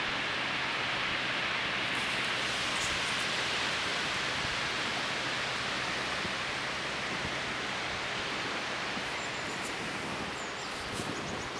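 Steady rush of water from an artificial waterfall, an even hiss with no change in level. A few faint high chirps and clicks come near the end.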